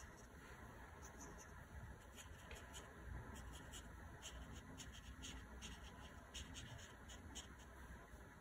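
Faint scratching of a small paintbrush on watercolor paper in many short strokes, working water into watercolor-crayon marks.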